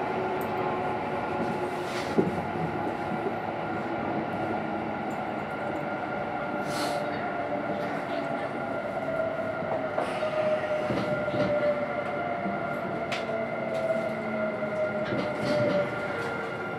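Kintetsu electric train running on the underground Namba Line, heard from the front cab. There is a steady rumble of wheels on rail under a steady motor whine, with a few sharp clicks scattered through it.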